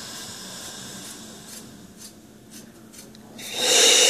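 A patient draws a deep breath of gas and air for pain relief through an Entonox demand valve mouthpiece. About three and a half seconds in, the valve gives a loud, harsh hiss that carries on past the end; before that there is only faint noise with a few small clicks.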